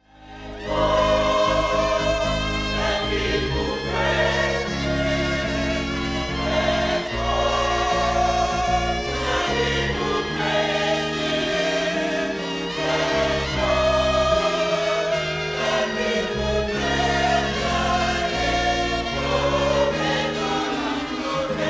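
Choir singing gospel music in sustained chords over held bass notes that change every second or two, fading in at the start.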